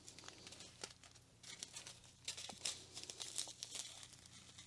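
Small plastic bags of rhinestone drills being handled, giving faint, irregular crinkling and crackling, busiest from about a second and a half in.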